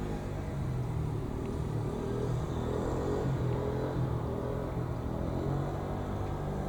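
Diesel railcar engine running with a low drone whose pitch slowly rises and falls, as a JR Shikoku 2600 series diesel multiple unit passes.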